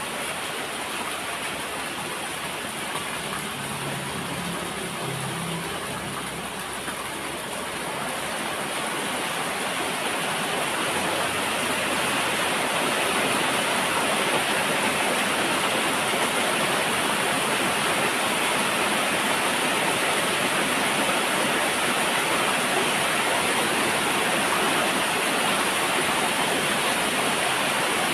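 Steady rain falling, a dense even hiss that grows louder about ten seconds in and then holds heavy and steady.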